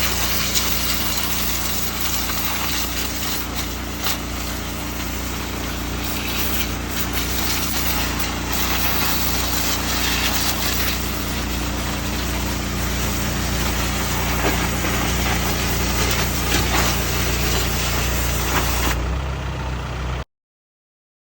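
An engine running steadily at an even speed, with a constant hiss over it; it cuts off abruptly near the end.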